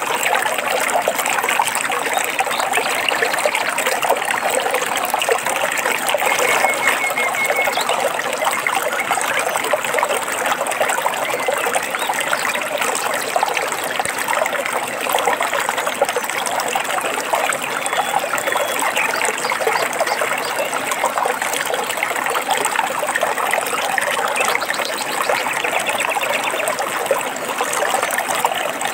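Water running and trickling steadily, as of a small stream, with a couple of faint short bird chirps, one about six seconds in and one around eighteen seconds.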